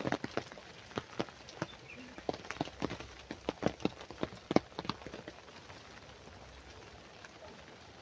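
Raindrops tapping irregularly on an umbrella held just overhead, over a soft patter of rain; the taps come thick for about five seconds, then thin out.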